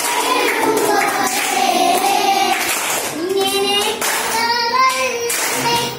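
A group of children singing a Malayalam poem together, clapping their hands along with the song.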